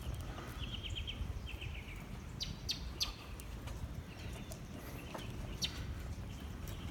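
Birds chirping: a few short quick trills and single high notes now and then, over a steady low outdoor rumble.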